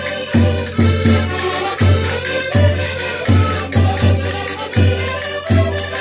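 A group of concertinas (Portuguese diatonic button accordions) playing a lively folk dance tune together, the bass buttons pumping on a steady beat. A cavaquinho is strummed along and hand shakers rattle.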